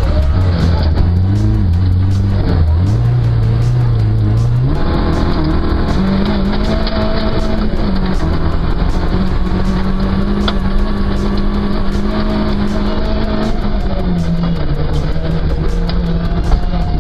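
Racing car engines running, with rock music playing over them.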